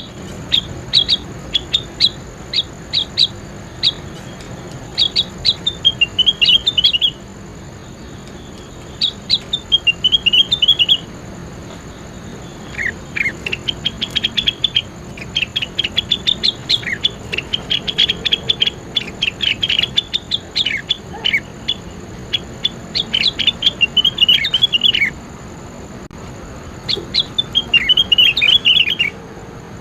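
A songbird singing bursts of quick, high chirps and short falling trills, a few seconds at a time with brief pauses between, over a faint steady high-pitched tone.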